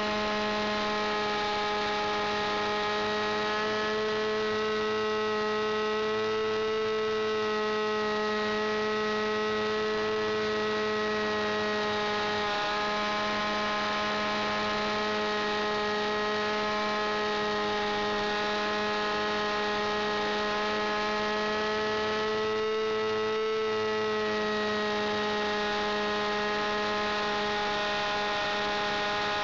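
Small engine of a Basic 2000 radio-controlled aerobatic model airplane running steadily in flight, heard close up from inside the fuselage. Its pitch rises slightly about a quarter of the way in and again about three quarters in.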